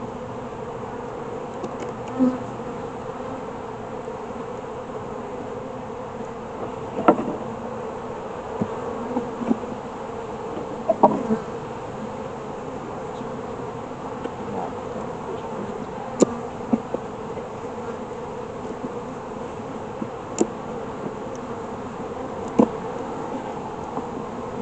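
Honeybees buzzing steadily around an open hive, an even droning hum. A few short, sharp knocks are heard now and then.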